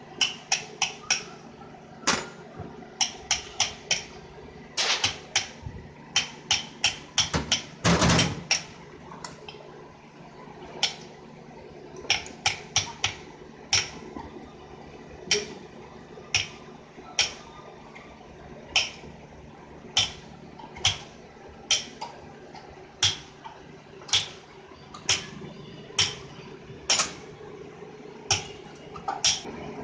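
Metal hand tools and small nuts clicking and tapping against the aluminium housing of an LPG kit reducer (vaporizer) as it is worked on with a spanner: a long run of sharp clicks, about one a second for much of the time, with a brief rasping noise about eight seconds in.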